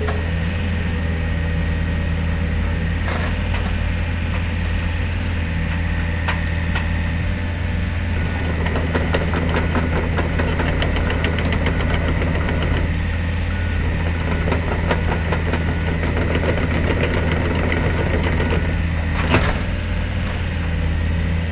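Komatsu PC55MR-3 midi excavator's diesel engine running at a steady speed. From about eight seconds in there is a stretch of dense metallic clanking and rattling, and a few sharp knocks, the loudest near the end.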